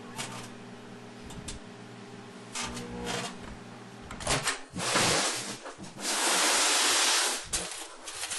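Microwave oven running with foil inside: a steady transformer hum with a few sharp crackles from the foil arcing. The hum stops about four seconds in and is followed by two loud rushing noise bursts, one short and one about a second and a half long.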